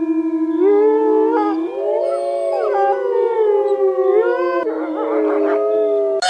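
Several animals calling at once in long, overlapping, drawn-out howls that slide up and down in pitch.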